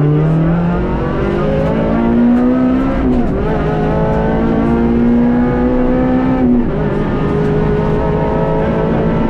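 Rally car engine heard from inside the cabin, accelerating hard through the gears: the pitch climbs, drops at a gear change about three seconds in and again about six and a half seconds in, with steady tyre and road noise underneath.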